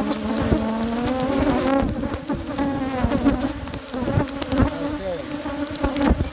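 Honeybees buzzing loudly around an opened hive, individual bees flying close past the microphone so the buzz swells and slides up and down in pitch, with scattered knocks and bumps throughout.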